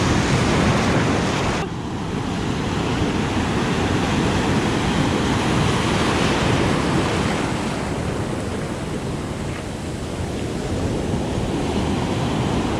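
Ocean surf breaking and foamy water rushing around the camera at water level, with wind buffeting the microphone. The sound turns abruptly duller about two seconds in.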